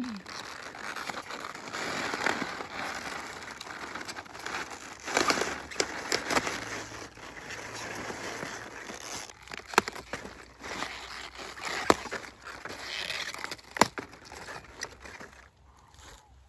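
Continuous rustling and crackling of garden plants and leaves being handled, with several sharp clicks scattered through it.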